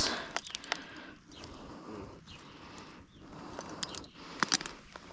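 Loose river-bank pebbles clicking and clattering in short scattered bursts, stirred while a landed gar is held down on the gravel under a kayak paddle.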